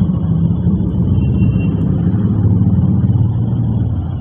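A loud low rumble that grows louder through the middle and drops off near the end.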